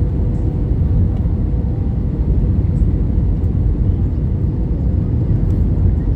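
Airliner cabin noise during the descent: a steady low rumble of the jet engines and the air rushing past the fuselage, with a faint steady hum above it.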